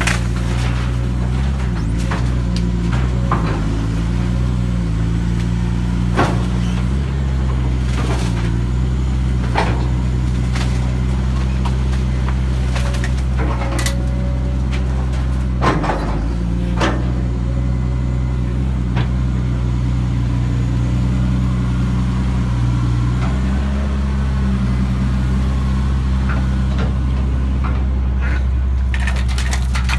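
Excavator's diesel engine running steadily, its pitch dipping and recovering several times as the hydraulics take load. Scattered sharp cracks and knocks of the house structure being broken apart, the loudest about halfway through.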